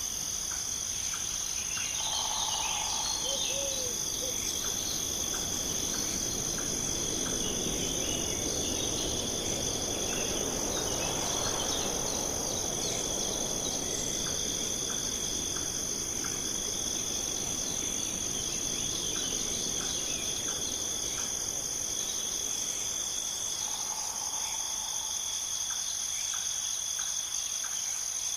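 Steady chorus of crickets and other insects, a continuous high trilling. A bird calls briefly a couple of times about two seconds in and again near the end, and a soft rush of noise swells and fades in the middle.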